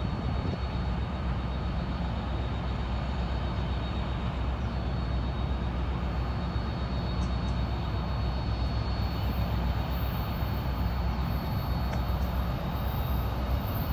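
Norfolk Southern diesel freight locomotive approaching, its engine running with a steady low rumble.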